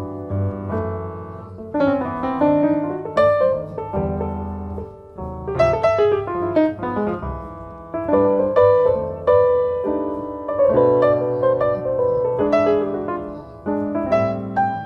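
A jazz ballad on acoustic piano: chords and single-note runs that ring and fade, with a double bass playing underneath.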